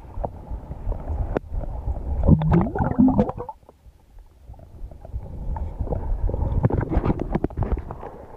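Water heard through an action camera held under the surface: a muffled low rumbling and gurgling as hands move through the water around the housing, with scattered sharp clicks. It dips quiet a little before halfway, then builds again.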